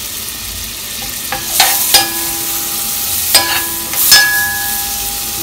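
Butter and garlic sizzling steadily in a pot while a metal spoon stirs them, knocking against the pot about five times; the pot rings briefly after each knock.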